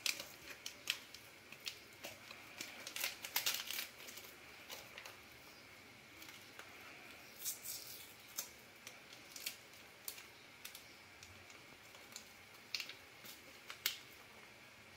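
Small vanilla-powder sachets crinkling and tearing as they are opened and shaken into a blender jar, in scattered short rustles and light clicks, a cluster about three seconds in, another near the middle and another near the end. Faint, over a steady hiss.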